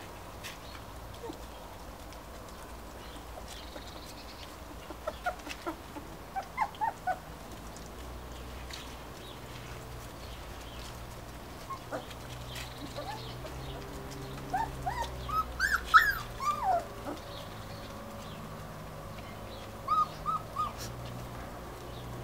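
Finnish Lapphund puppies squeaking and yelping in short high calls that come in scattered clusters, the loudest cluster about two-thirds of the way through, over a low steady hum.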